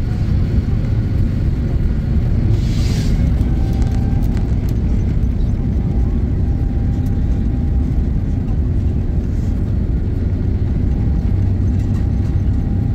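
Airliner cabin noise heard from a window seat as the jet rolls along the ground: a steady low rumble from the jet engines and the wheels, with light rattles. A brief hiss about three seconds in.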